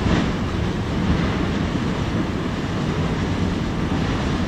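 Steady low rumble of an active lava lake churning below the crater rim, mixed with wind on the microphone.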